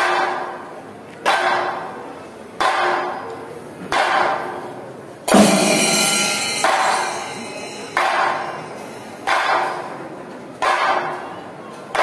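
Kerala temple percussion ensemble of chenda drums and ilathalam cymbals playing a slow, even beat, one struck hit about every second and a third, each ringing out under the large hall roof. The hit about five seconds in is the loudest and fullest.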